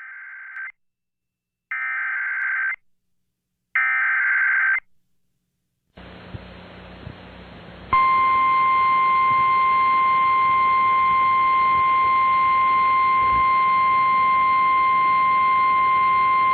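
NOAA Weather Radio tornado warning alert: three short buzzy bursts of the digital alert header, each about a second long, then a hiss of radio static. About two seconds later comes the loud, steady warning alarm tone, held for about nine seconds.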